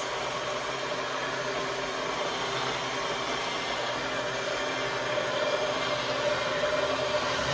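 Handheld immersion blender running in a pot of butternut squash soup, a steady motor whir with the churning of the purée, growing a little louder near the end.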